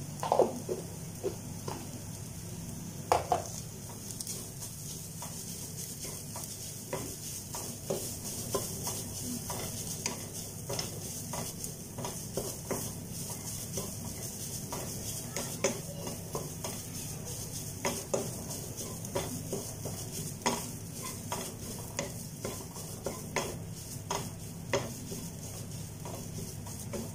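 Wooden spatula stirring and scraping a dry chicken masala around a coated frying pan, with irregular scrapes and light taps over a steady sizzle as the mixture fries.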